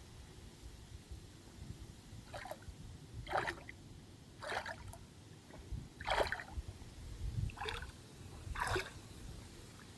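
Water splashing and sloshing in a series of about six short splashes, roughly a second apart, over a low rumble.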